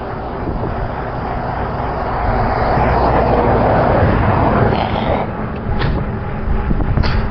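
Wind and road noise while riding a bicycle on a highway. It swells to its loudest in the middle and eases off, with two short clicks near the end.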